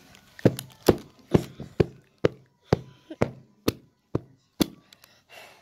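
About ten sharp knocks in a steady rhythm, a little over two a second, as something hard is struck over and over in a test of whether it breaks.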